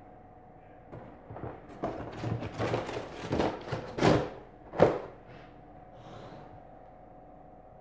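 A sheet of cardboard scraping and rustling against the woven seagrass sides of a storage basket as it is pressed down into the bottom, with two sharper knocks a little after halfway.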